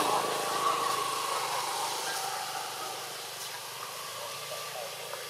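A motor engine running steadily, its sound fading over the first three seconds as if moving away, then a low, even hum.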